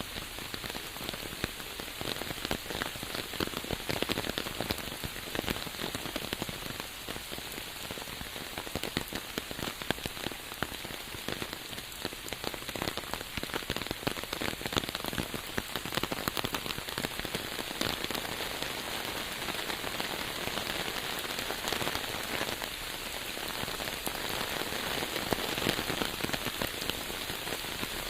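Steady, heavy rain falling on a surface, with many separate drops pattering through a dense hiss.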